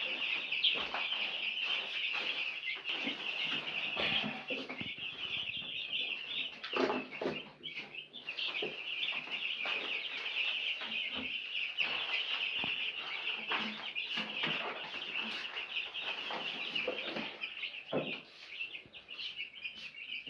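A brood of young broiler chicks peeping continuously in a dense, high-pitched chorus. There are occasional knocks and rustles among the peeping.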